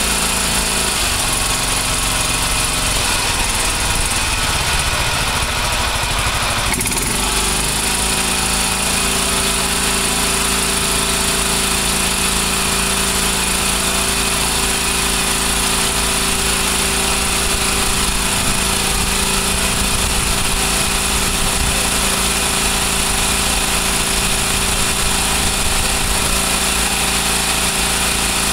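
Kawasaki FB460V engine of a Scag 36-inch walk-behind mower running steadily through a custom exhaust pipe routed down to the mower deck. About seven seconds in, its note shifts and then holds even.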